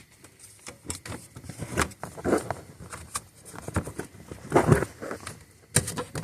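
Irregular clicks, knocks and dull thuds of hands handling parts, with some rustling.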